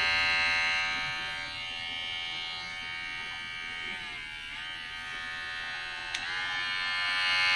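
Cordless barber hair clipper running: a steady electric buzz with many even overtones, louder at the start and end and quieter in between. The pitch sags briefly about four seconds in, and there is a single click about six seconds in.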